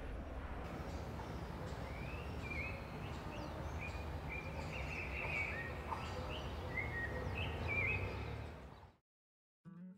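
Outdoor ambience: a steady low rumble with birds chirping over it, fading out about nine seconds in. An acoustic guitar starts up just at the end.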